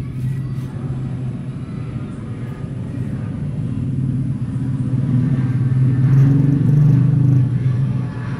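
A low, steady engine rumble, growing louder from about five seconds in and easing off near the end.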